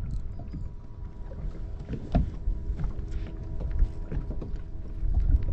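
A steady mechanical hum on a bass boat with wind rumbling on the microphone, while a hooked bass is reeled in. A few short knocks, the sharpest about two seconds in.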